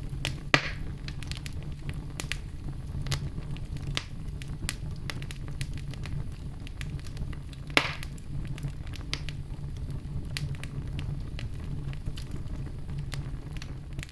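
Fire burning steadily with a low rumble and scattered crackles, and two louder pops, one about half a second in and one near eight seconds.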